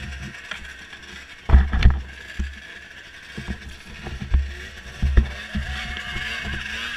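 Irregular heavy thumps and knocks from the camera mount being jostled as the rider moves, over snowmobile engines running. One engine hum steadies near the end.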